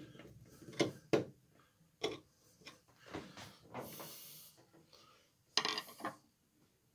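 Handling noises: a series of separate knocks and clicks from a screwdriver and hands at a wall outlet plate, then a brief hissy rub about four seconds in and a short louder scraping rustle shortly before the end.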